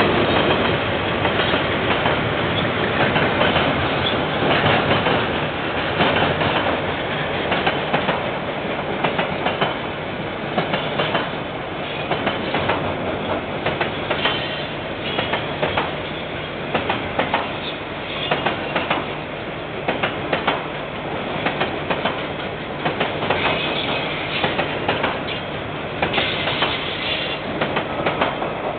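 Freight train's wagons rolling past, a continuous rumble with wheels clacking over the rail joints in a steady run of clicks, picked up by a security camera's microphone.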